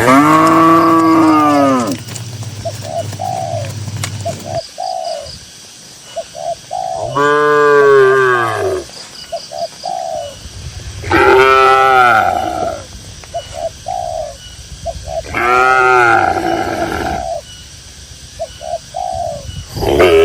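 Cow mooing four times, each a long call of about two seconds that rises and then falls in pitch. Short bird calls repeat in the pauses between the moos.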